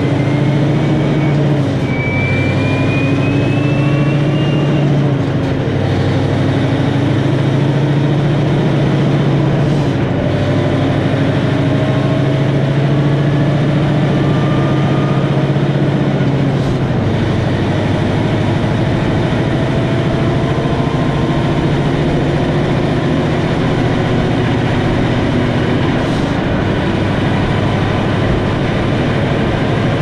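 Scania R770's 16-litre V8 diesel pulling hard under a heavy towed load as the truck accelerates up through the gears. The engine note rises steadily in each gear and drops at each upshift, four times. The exhaust is muted by its AdBlue emissions system, so there is little V8 rumble over the steady tyre and road noise.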